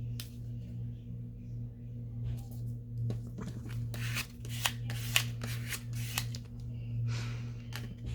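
Paper being handled: a run of crisp rustles and clicks from about three seconds in until near the end, over a steady low hum.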